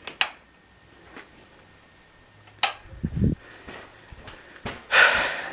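Scattered handling noises of someone moving through a dark room with the camera: a sharp click just after the start, another click and a short low thump about halfway through, and a brief hiss near the end.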